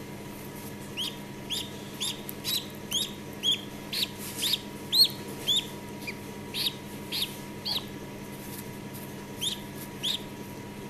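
Khaki Campbell duckling peeping while still half inside its egg during an assisted hatch: a run of short, high, rise-and-fall peeps about two a second, a pause, then two more peeps near the end.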